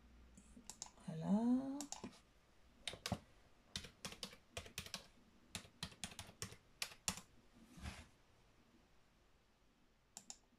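Computer keyboard keystrokes, irregular taps as login codes are typed in, most of them between about three and eight seconds in, with one last tap near the end. About a second in there is a short rising hum.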